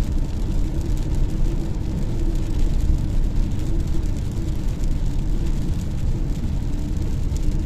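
Steady road noise inside a car at motorway speed: tyres running on a wet road under a low, even engine hum.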